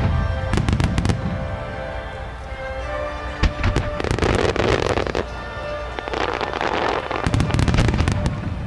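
Fireworks going off in time with music played over loudspeakers. A cluster of sharp bangs comes in the first second and a single bang about three and a half seconds in, then two longer spells of rapid pops, from about four to five seconds and again from about six to eight seconds.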